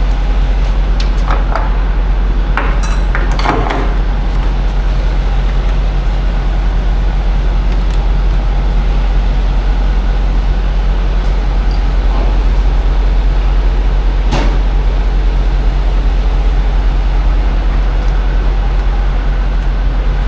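Heavy diesel truck idling steadily at a fuel pump, a constant low hum. Several metallic clicks and knocks come in the first few seconds, and a sharp knock about fourteen seconds in.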